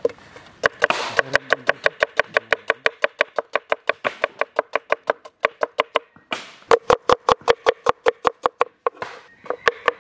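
Large knife slicing red onions on a wooden chopping board: fast, even chops about six to seven a second, with two short breaks, about six seconds in and near the end.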